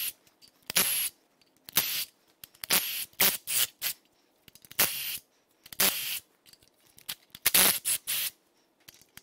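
Milwaukee Fuel cordless power tool run in short trigger bursts, about ten of them roughly a second apart, loosening cylinder head bolts.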